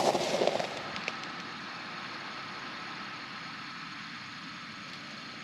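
A steady faint mechanical hum with a few thin, even tones in it, following the tail end of a voice in the first moment, with a single small click about a second in.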